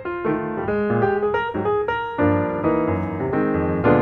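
Background piano music: a quick run of single notes, with fuller chords from about halfway through.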